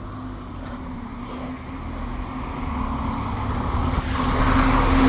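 Bus engine running with a steady drone, growing steadily louder as the bus pulls off and comes past.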